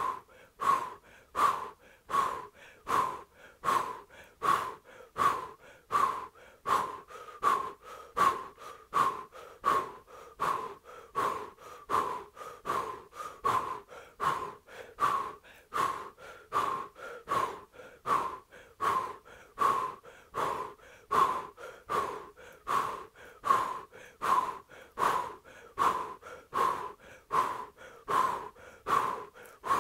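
Powerful, forceful breathing through an O-shaped mouth in a kundalini yoga kriya, each breath pushed from the navel. The breaths come in a rapid, even rhythm of about three every two seconds.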